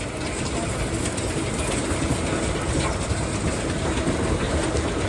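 Steady, loud mechanical rumble with a faint steady hum through it.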